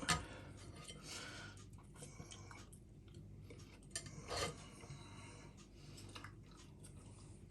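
A person chewing a mouthful of cooked chicken, with faint small clicks and a brief louder sound about four and a half seconds in.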